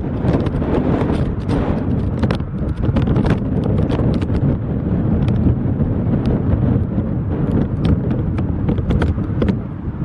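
Inside an airliner's cabin during a storm-buffeted landing: a heavy steady rumble with constant irregular rattling and knocking from the shaking cabin. It eases a little near the end.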